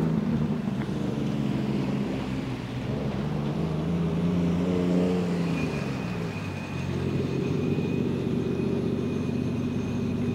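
Modified cars with loud exhausts rolling slowly past at low revs: a deep, steady exhaust drone that climbs briefly in pitch about four to five seconds in, then settles again.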